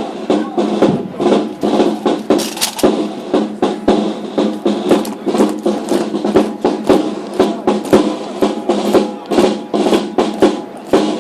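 Drum-led band music: fast snare-drum strikes and rolls over sustained low held tones.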